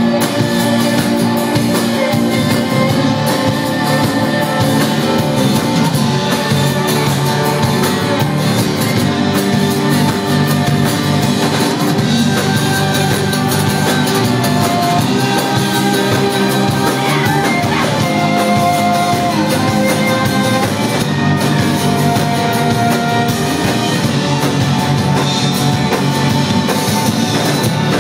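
An indie rock band playing live: acoustic guitar, electric bass, drum kit, cello and violin together, loud and full without a break.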